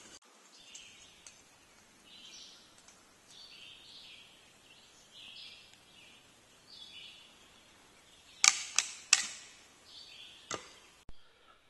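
A big chisel, or spud, knocking into a log: a quick run of three sharp knocks, then two single knocks near the end. Faint high bird chirps come every second or so before them.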